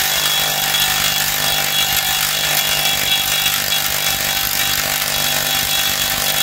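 Cordless impact wrench hammering steadily as it runs the propeller shaft nut tight onto an outboard's prop shaft.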